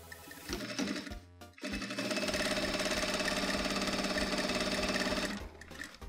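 Industrial sewing machine stitching a straight line through denim and a patch: a little start-and-stop stitching in the first second or so, then running steadily at speed for about three and a half seconds before stopping near the end.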